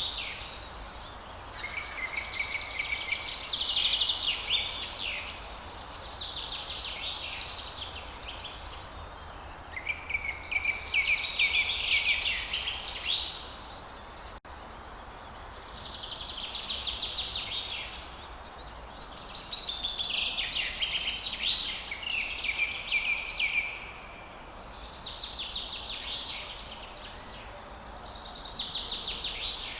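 Songbirds singing in a forest: high, trilling song phrases a few seconds long, one after another with short pauses between, over a faint low rumble.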